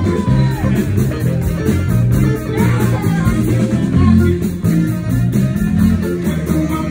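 Live blues band playing, with the electric bass guitar line loudest in the mix.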